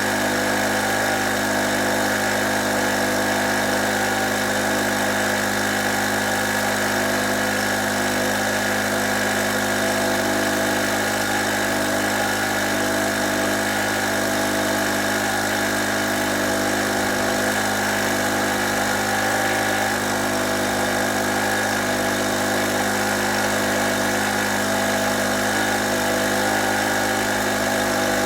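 Small two-stroke portable generator engine running steadily at a constant speed on years-old premixed petrol.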